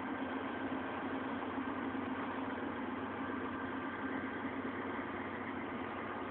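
Freight train of covered hopper cars rolling slowly past, a steady rumble of wheels on rail with a steady low hum under it.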